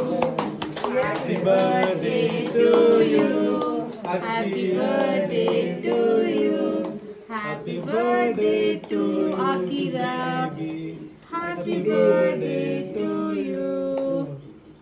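A group of men and women singing a birthday song together without instruments, stopping about a second before the end.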